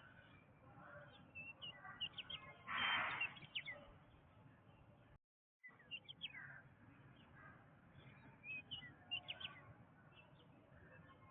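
Jungle ambience of several birds chirping and calling in short, high, quick notes over a soft background hiss. About three seconds in there is one louder, noisier call, and about five seconds in the sound drops out completely for a moment.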